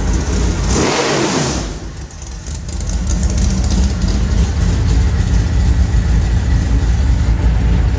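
Small-block V8 engine running with a low, steady rumble. About a second in, a brief loud rush of noise cuts across it, the engine sound dips for a moment, then settles back into its steady rumble.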